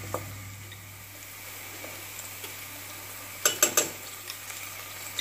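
Chopped onions frying in oil in a stainless steel pot, a steady soft sizzle. A quick run of clinks and scrapes of a utensil against the pot comes about three and a half seconds in.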